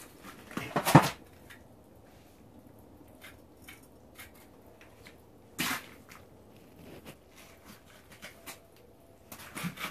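Knocks and bumps from a person moving about and handling gear. A loud knock comes about a second in, another near the middle, and a cluster of clicks and knocks near the end, with faint small ticks and rustles between.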